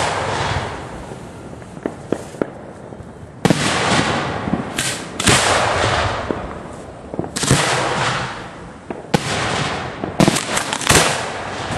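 Fireworks going off at close range at the launch site: about half a dozen sudden blasts, each trailing a rushing hiss of a second or so, with sharp cracks and pops between them.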